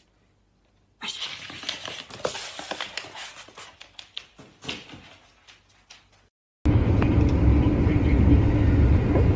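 Rustling and sharp clicking as a dog moves out of a blanket and across a wooden floor, fading out. After a short silence, steady low road rumble inside a moving car's cabin.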